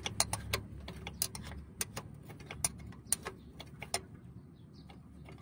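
Sharp metallic clicks, several a second and irregular, from vise-grip locking pliers and a hand working the seized clutch adjustment on a Mitsubishi Canter's clutch release cylinder pushrod to free it. The clicks thin out after about four seconds.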